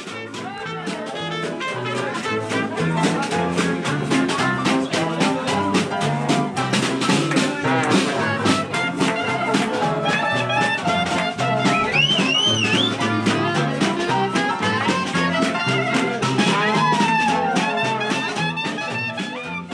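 Swing jazz with brass and piano over a steady beat and a walking bass line.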